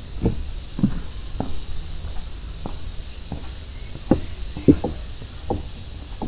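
Footsteps of someone walking at an easy pace, roughly three steps every two seconds, over a steady high hiss, with two short high chirps about three seconds apart.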